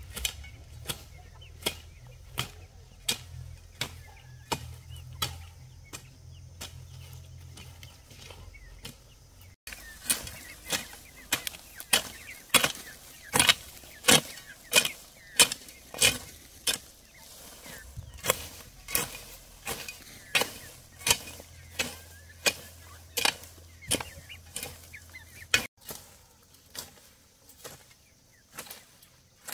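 Steady rhythm of sharp chopping strikes from a hand tool such as a hoe or machete, about one and a half a second, the run breaking off twice.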